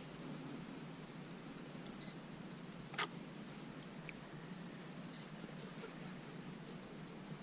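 A handheld camera's short high focus-confirmation beep, then its shutter clicking once about three seconds in, and a second beep a couple of seconds later.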